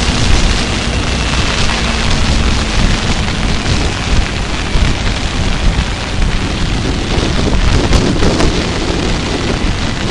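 Heavy wind buffeting on a motorcycle-mounted camera's microphone at riding speed, mostly covering the sport bike's engine. A faint steady engine hum shows through in the first few seconds.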